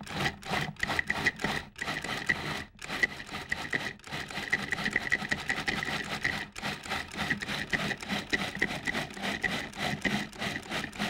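Food processor motor running in pulses, its blade chopping tomatoes, garlic and olive oil into a chunky marinara. It comes as several short bursts at first with brief stops between them, then longer runs, with a fast, even ticking texture throughout.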